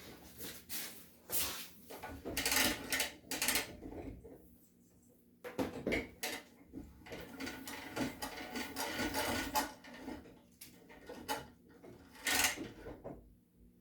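Handling noise: irregular knocks, clatter and rubbing as tools and objects are moved about and set down on a hard surface, with no motor running.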